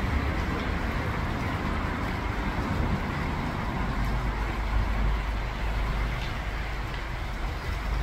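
Steady rush of flowing creek water, with a low rumble underneath and a couple of faint small splashes.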